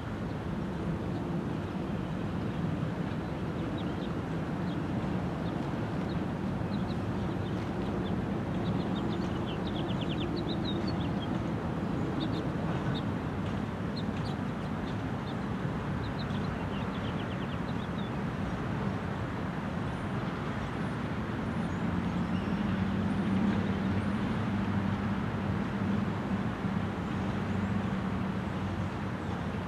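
Loaded trash-train freight cars rolling steadily past on the rails, a continuous rumble with a low hum. Birds chirp a few times from about eight to eighteen seconds in, with higher whistles just after twenty seconds.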